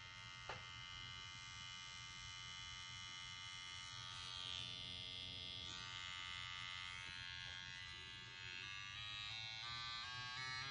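CNC WE wireless rotary tattoo machine running, a faint steady motor buzz. Near the end its pitch steps up several times as the speed is raised.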